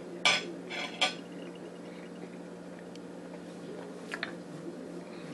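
Cutlery clinking against a dish a few times in the first second or so, and once more, fainter, about four seconds in, as a bite of dessert is taken.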